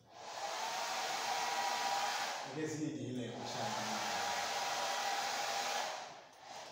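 Hand-held hair dryer switched on, running with a steady blowing hiss and a steady whine, briefly dipping about three seconds in under a short burst of voice, then switched off about six seconds in.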